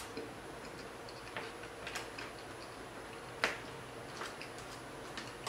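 Metal fork clicking and scraping against a clear serving dish as loaded nachos are picked up: scattered small clicks, the loudest about three and a half seconds in.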